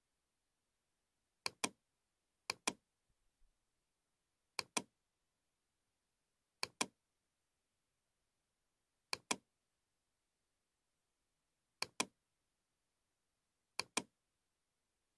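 Computer mouse button clicking: seven quick double clicks, spaced one to three seconds apart.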